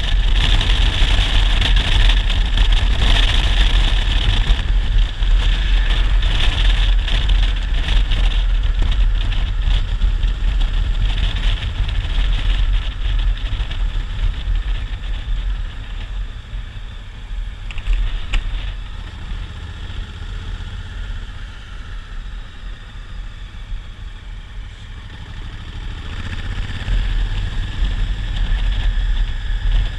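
Wind rushing over the microphone and the low drone of a Honda Africa Twin DCT's 998 cc parallel-twin engine while riding. The noise eases off a little past halfway and builds again near the end.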